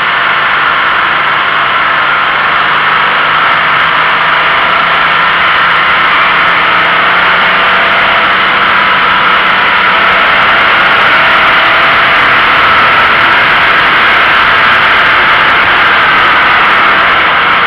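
Steady rush of wind and tyre noise on a camera mounted low on the outside of a moving Toyota GT86, with the car's flat-four engine running faintly beneath.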